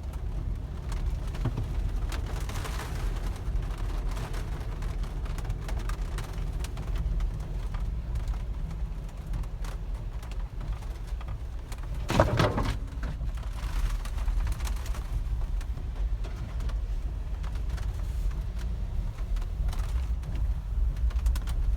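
Low, steady rumble of a car driving slowly, heard from inside the cabin, with one brief louder noise about twelve seconds in.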